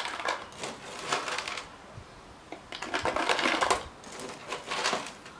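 Dry ice pellets scooped with a metal spoon and rattling into a plastic bottle, in four short bursts of clatter.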